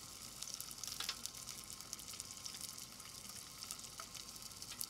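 Faint, steady sizzling crackle of a pan on the stove, with a few soft clicks and scrapes of a metal spoon scooping seeds out of a roasted spaghetti squash half, one about a second in and another near four seconds.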